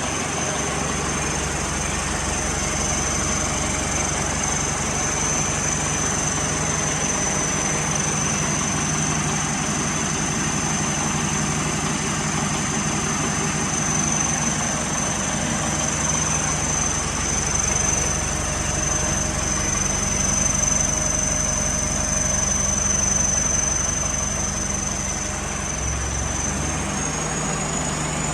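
A vehicle engine idling steadily, with a thin, high, constant whine over it; the engine note shifts briefly about two seconds before the end.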